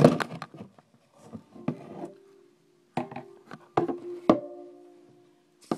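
Armadillo-shell ukulele being handled: a loud knock against the body at the start, then its strings struck a few times in the second half, each note ringing on and fading slowly.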